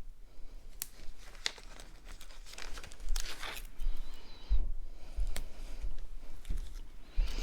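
Paper and cardstock pieces crinkling and rustling as they are handled, with a few sharp clicks and light taps on the table.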